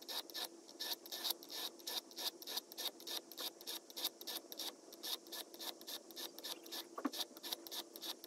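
Steel broadhead blade scraped back and forth over a wet coarse sharpening stone in quick, even strokes, about four to five a second, grinding a chip out of the edge. One sharper click about seven seconds in.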